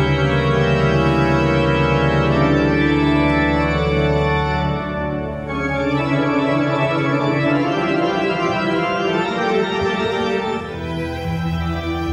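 Church pipe organ playing held chords over a deep sustained bass, moving to a new chord about halfway through.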